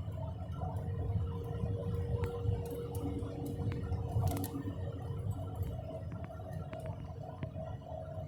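A car's worn front wheel bearing humming steadily over low road rumble while driving, heard from inside the car, with a few faint ticks.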